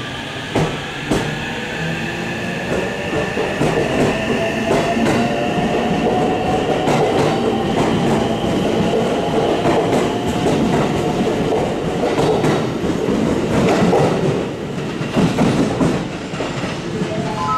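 JR West suburban electric train pulling out of the station: its traction motors whine in tones that climb in pitch as it gathers speed, over the rumble of the cars and wheels clicking across rail joints. Near the end a melodic station chime starts.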